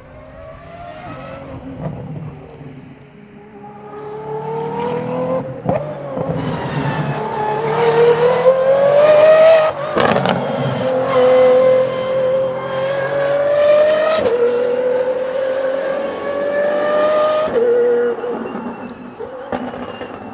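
De Tomaso P72 prototype's 6.3-litre naturally aspirated V12 accelerating hard through the gears. It grows louder, and its pitch climbs and drops at each of four quick upshifts, with a sharp crack at the shift about ten seconds in.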